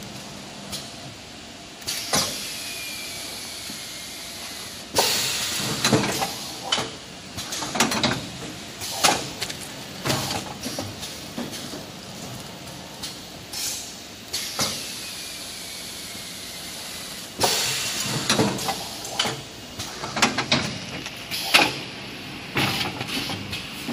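Semi-automatic kitchen towel plastic bag packing machine working: irregular bursts of hissing and clacking from its mechanism, with a faint falling whine twice.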